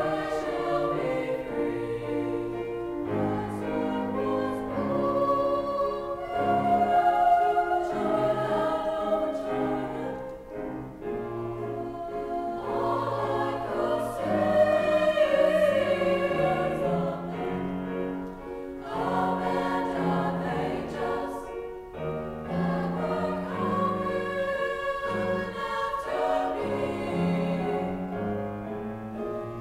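Women's choir singing a classical-style choral piece in sustained phrases, accompanied by grand piano. The sound swells louder twice, once before the middle and once around it.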